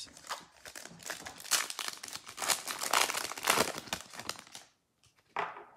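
Foil wrapper of a 2020 Panini Select football card pack crinkling and tearing as it is opened by hand: a dense crackle for about four and a half seconds that then stops.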